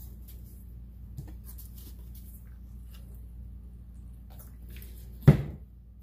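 Plastic squeeze bottles of acrylic pouring paint being handled and squeezed into a cup, with faint small squishes and clicks over a steady low hum. About five seconds in, a single loud knock as a bottle is set down on the table.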